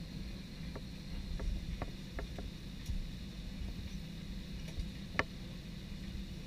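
Steady airliner cabin noise: the low hum of the engines and air system, with a thin high whine, and a few faint clicks scattered through it.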